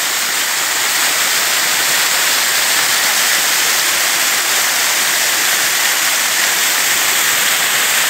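Small forest waterfall cascading over rocks: a steady, loud rush of water.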